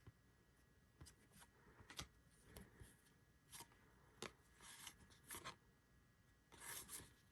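Faint handling of baseball trading cards: a string of soft snaps and flicks as cards are slid off a stack one at a time, with a longer rustle near the end.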